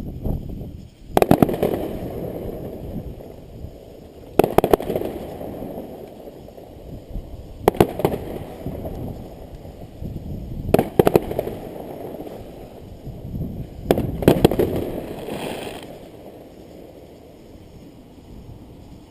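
Aerial fireworks going off in volleys of sharp bangs about every three seconds, five in all. Each volley is followed by a low rumble that trails away.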